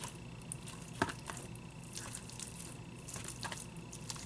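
Plastic knife and fork cutting through chicken pasta in a plastic takeout bowl: faint scattered scrapes and clicks, with a sharper click about a second in.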